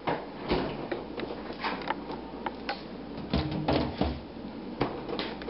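Refrigerator door being opened and a lidded plastic bowl set onto a shelf inside, with a run of knocks, clunks and clicks as it is handled.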